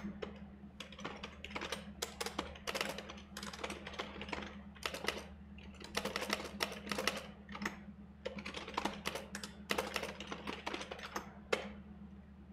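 Typing on a computer keyboard: rapid runs of key clicks with short pauses between them, thinning out near the end.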